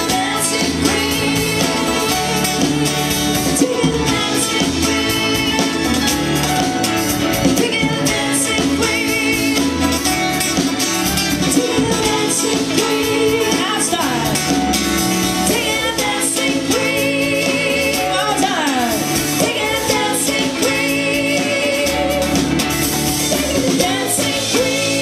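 Live pop-rock band playing with a woman singing lead, over acoustic and electric guitars, keyboard and drums. Near the end she holds one long note with vibrato.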